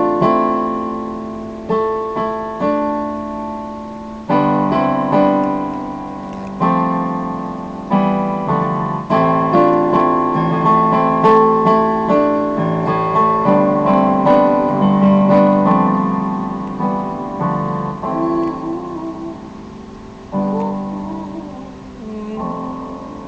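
Solo piano playing slow chords, each struck and left to ring and fade, with no voice. It grows softer near the end.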